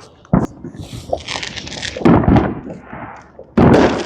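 New Year's fireworks going off: two sharp cracks early, a spell of crackling, then two loud bangs about two seconds and three and a half seconds in.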